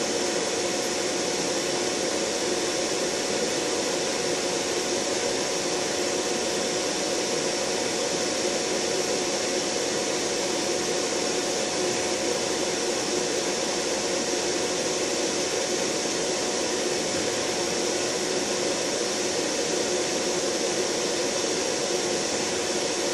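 Large fan on a homemade soldering station running steadily: a loud, even rush of air with a faint steady hum through it.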